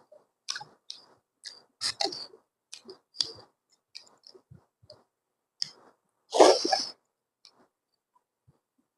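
Close-miked mouth sounds of a person chewing food: short, irregular wet clicks and smacks, with one louder burst of about half a second a little over six seconds in.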